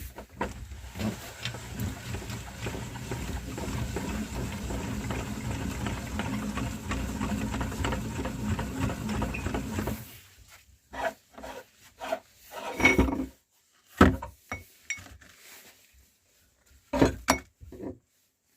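Meat grinder grinding chocolate-filled cookies: a continuous grinding rumble with crackling that stops about ten seconds in. After that come scattered sharp knocks and clacks, like hard objects being handled.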